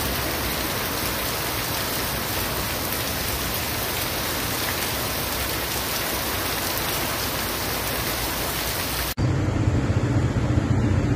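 Heavy rain pouring down in a steady, even hiss. About nine seconds in it cuts abruptly to a louder, deeper rush of noise.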